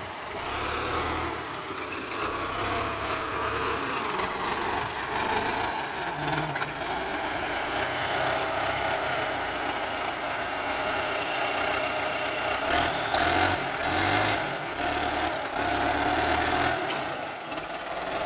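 Ford 6610 tractor's four-cylinder diesel engine running under load as it pulls a disc plough through wet mud, its note rising and falling.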